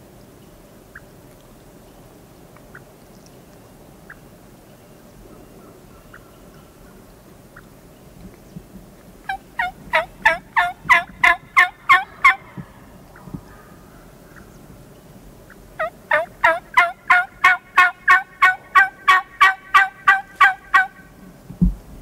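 Turkey yelping in two long runs of quick, evenly spaced notes, the first about three seconds long and the second about five. A low thump comes near the end.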